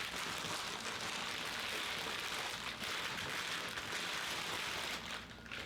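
Bubble wrap and plastic packaging crinkling and crackling as a controller is handled and unwrapped, a dense, continuous crackle that dies away about five seconds in.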